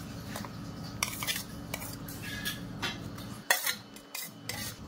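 A steel spoon scraping and clinking against a steel plate as fried onion and tomato are pushed off it into a bowl of beaten egg: a run of short clinks and scrapes, the loudest about three and a half seconds in.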